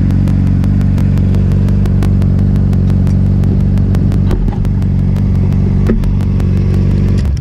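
Sport motorcycle engine idling steadily at a constant pitch, with a quick, even light clicking over it.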